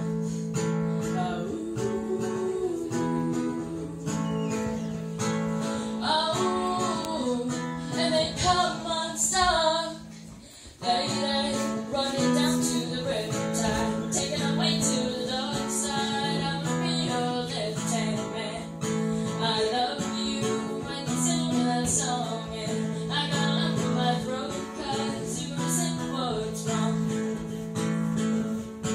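A woman singing a song while strumming an acoustic string instrument, with a short drop in the playing about ten seconds in before it picks up again.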